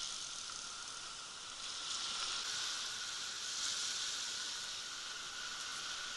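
Small waves washing up and draining back over a fine shingle beach, a steady fizzing hiss that swells a little twice.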